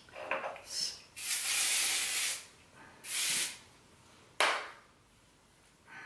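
Aerosol hairspray sprayed in three bursts: a long hiss of over a second, a shorter one, then a brief one that starts sharply. Hair rustles under the hands just before.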